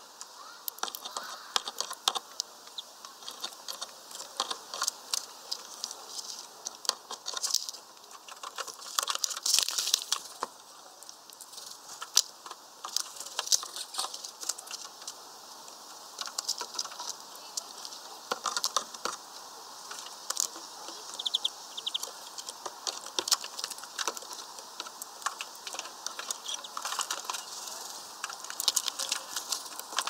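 European greenfinches pecking at peanuts through a mesh feeder bag: a steady run of quick, irregular clicks and taps.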